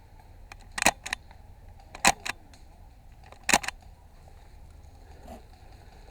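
Airsoft rifle firing three sharp shots, about a second and a half apart. The first two are each followed closely by a fainter click.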